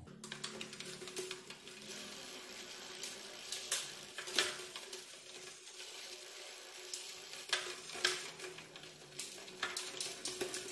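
Wet mountain bike drivetrain turning: the rear wheel spins while the chain runs over the cassette sprockets and through the Shimano Tourney rear derailleur, giving a steady crackly hiss with a few sharp clicks.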